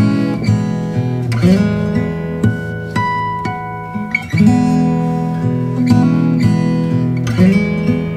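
Instrumental music led by strummed acoustic guitar, with ringing chords and a strong strum about every three seconds.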